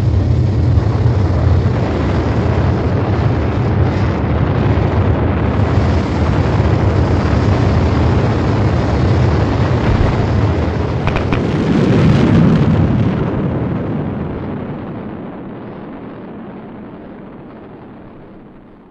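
Sound effect of the sky crane descent stage's rocket engines firing: a loud, steady rushing rumble. It swells about twelve seconds in and then fades away as the descent stage flies off.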